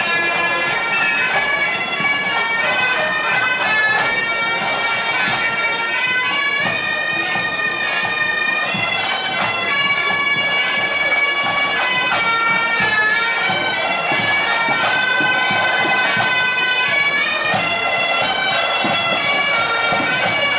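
Pipe band playing a tune on the march: Great Highland bagpipes carrying the melody over their steady drone, with snare, tenor and bass drums beneath.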